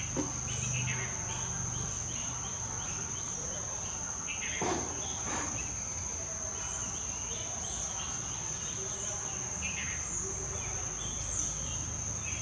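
Steady high-pitched insect trill, unbroken throughout, with a few short brief noises over it, the most noticeable about five seconds in and again near ten seconds.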